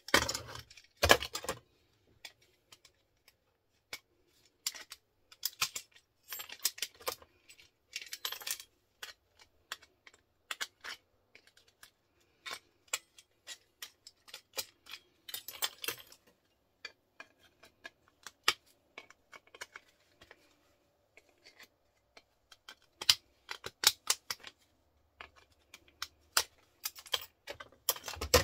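Scrap plugs and sockets being taken apart by hand with pliers: irregular clicks, snaps and clinks of small brass pieces and plastic parts against a metal bench, in clusters with short pauses between.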